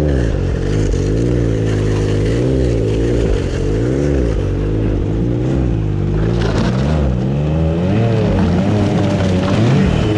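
Ski-Doo Expedition snowmobile engine running as the sled travels along the trail, its pitch rising and falling again and again as the throttle is worked.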